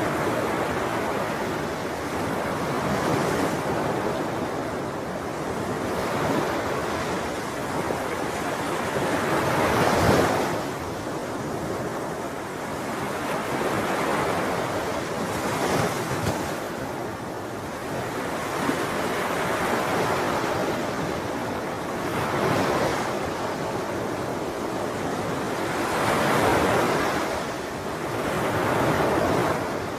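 Sea waves breaking and washing on the shore in steady surf, the wash swelling and fading every few seconds with a bigger break about a third of the way in. Light wind noise on the microphone.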